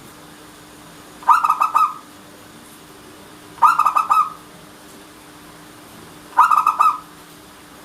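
Zebra dove (perkutut) cooing: three phrases of quick, rippling notes, one about every two and a half seconds.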